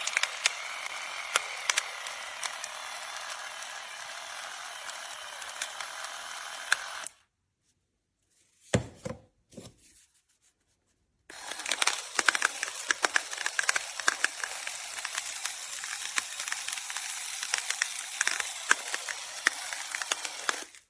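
Electric pepper grinder running and crushing grains with a dense crackle of small clicks; it runs for about seven seconds, stops, there is a brief knock, then it runs again for about nine seconds.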